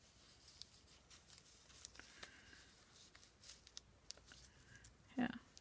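Faint rustling and light taps of paper pieces being handled and laid in place on a journal page.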